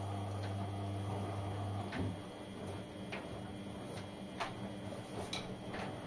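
LG front-loading washing machines running: a steady low hum stops about two seconds in, then the drums tumble with scattered sharp ticks and clicks.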